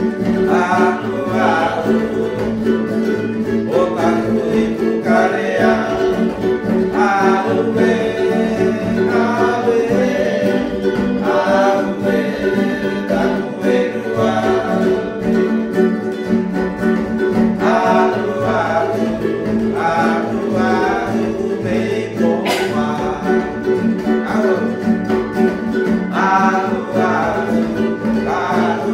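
A man singing to strummed acoustic guitar and ukulele, a steady strummed accompaniment under a sung melody.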